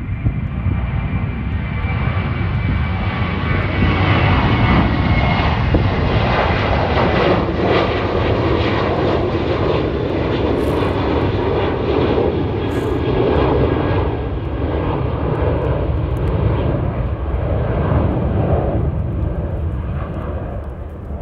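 Aircraft flying over: a broad engine noise that swells over the first few seconds, holds, and fades toward the end.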